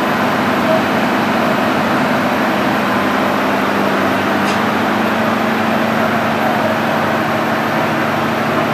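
MAN gas engines of a biogas combined heat and power unit running at constant speed, heard from the plant's control room as a steady drone with a constant low hum.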